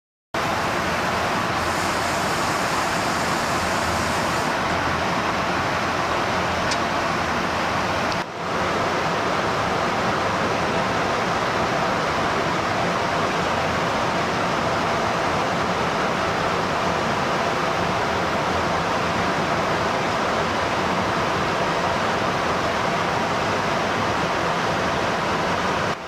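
Steady rushing noise of airflow and engines heard from inside an aerial-refueling tanker's boom-operator pod while the boom is connected to an F-22 Raptor, with a brief dip about eight seconds in.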